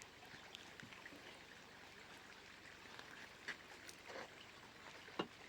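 Near silence: faint outdoor ambience, a low even hiss with a few soft clicks in the second half.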